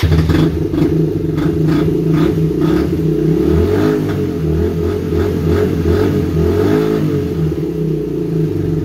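1994 Suzuki DR125's single-cylinder four-stroke engine running loud through a muffler rusted open with a big hole, the exhaust blowing out unsilenced. Two brief throttle blips about four and seven seconds in.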